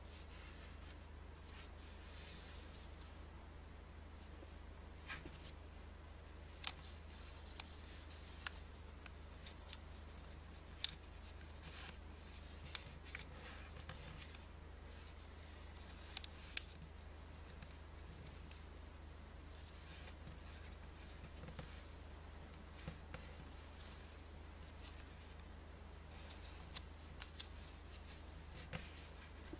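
Banknote paper being folded and creased by hand: faint rustling with scattered sharp crackles as the folds are pressed flat.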